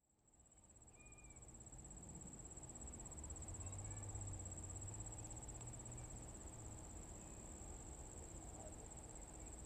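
An insect trilling steadily at a high pitch, over a low rumble that swells in over the first few seconds.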